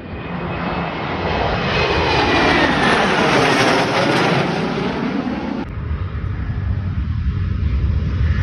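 Airplane engines passing close by as the aircraft comes in to land. The noise swells to a peak two to three seconds in, with the pitch falling as it passes. About five and a half seconds in it changes abruptly to a lower, steady rumble.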